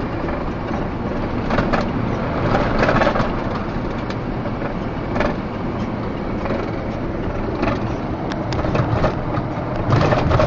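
Inside the cab of a 2011 Freightliner box truck under way: steady engine and road noise, with a few short knocks or rattles spread through it.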